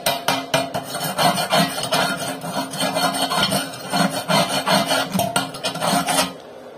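Flat steel bar scraping and tapping along arc-weld beads on a steel plate, in quick repeated strokes about three to four a second, with the plate ringing. It stops abruptly near the end.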